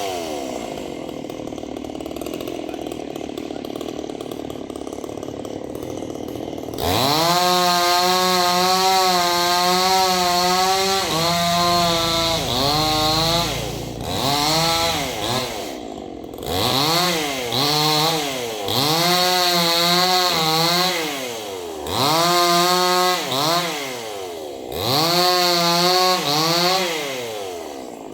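Two-stroke chainsaw idling for about seven seconds, then run up to full throttle over and over, its pitch falling back between each run-up.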